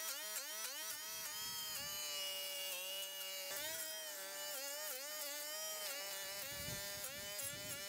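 Small high-speed motor of a yard power tool running with a high whine, its pitch dipping and recovering several times as it takes load, with a steadier stretch in the middle.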